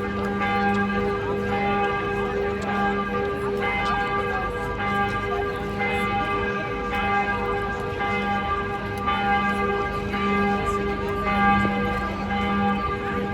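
Notre-Dame Cathedral's church bells ringing together, a new strike about once a second with the tones hanging on and overlapping.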